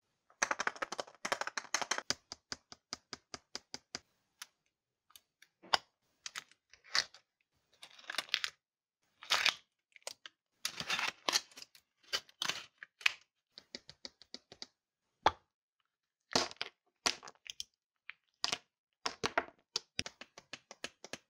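Close crinkling and tearing of the thin foil wrapper being peeled off a Chupa Chups chocolate ball, in quick crackly bursts with short pauses. The hollow chocolate shell is cracked open, and a clear plastic toy capsule clicks and rubs between the fingers near the end.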